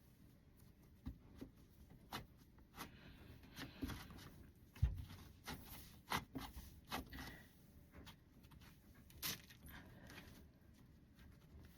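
Cloud slime with instant snow being kneaded and stretched by hand, giving faint irregular crackles and soft pops, with one low thump about five seconds in.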